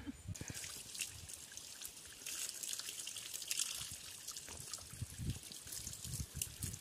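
Water from a garden hose trickling and splashing over a dog's wet coat as it is rinsed.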